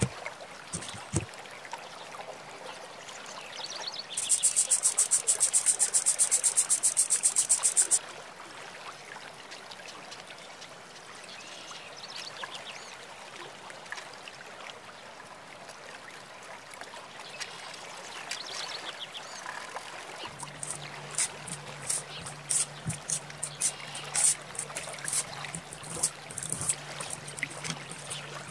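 A knife chops dry, crumbled clay trimmings on a cutting board: clicks as the pieces break at first, then about four seconds in a fast run of chopping taps lasting about four seconds, then quieter scraping. Later the clay, now wet, is scraped and worked with a palette knife, with scattered clicks over a low steady hum.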